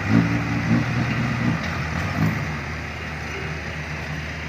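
Heavy diesel engine running steadily, a little louder in the first second.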